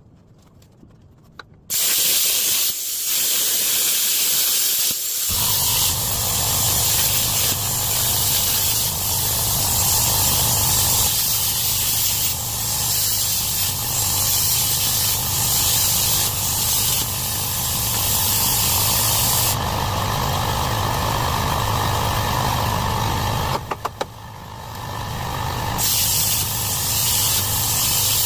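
Plasma cutter cutting through the car's heavy frame metal: the torch's air starts hissing loudly about two seconds in, and a few seconds later the arc catches and adds a low buzz as the cut runs. Near the end the cut stops briefly with a few clicks, then starts again.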